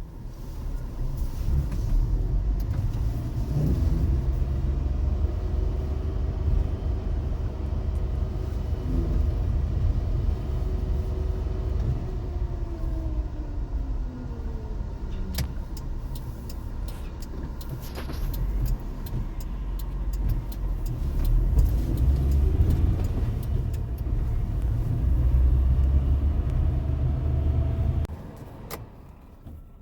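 Suzuki JA71 Jimny being driven: a steady low rumble of the small three-cylinder engine and road noise, its pitch slowly rising and falling with engine speed, dropping away near the end.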